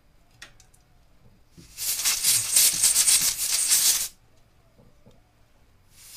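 Can of compressed-air duster spraying in a hissing burst of about two seconds, blowing grit out of the small gears of a stuck projector iris assembly. A second burst starts near the end.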